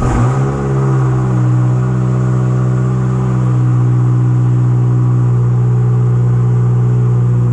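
Nissan Altima 2.5-litre four-cylinder engine starting up and settling straight into a steady idle, heard from inside the cabin. The engine has a newly fitted knock sensor.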